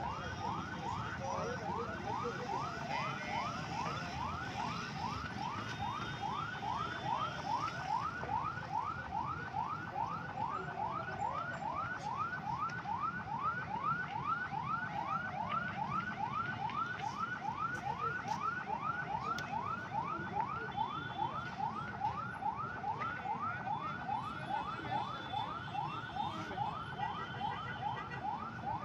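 Fire engine siren in fast yelp mode: a rising wail repeating about three times a second without a break, over a low rumble of traffic.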